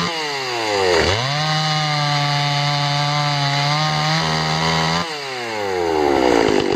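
Dolmar 116si two-stroke chainsaw running hard, cutting wood. Its engine note dips sharply and recovers about a second in, holds steady, then falls in speed over the last couple of seconds.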